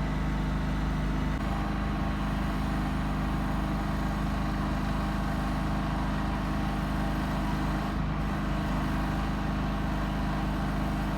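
Steady low mechanical hum of a motor running without change, a droning pitch with its overtones.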